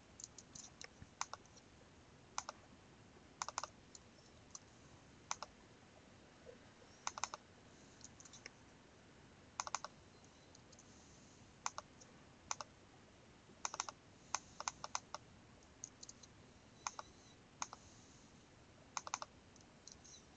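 Computer keyboard keystrokes and clicks, faint and sparse, in short irregular runs with quiet gaps between.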